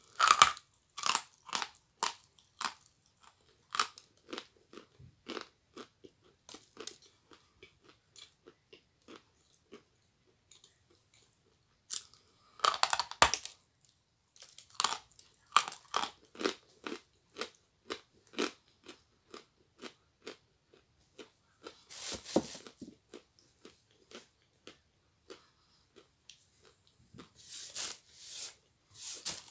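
Biting and chewing a lump of Alenka edible chalk close to the microphone: loud crunching bites at the start, near the middle and near the end, with rows of smaller, sharp crunches from chewing between them.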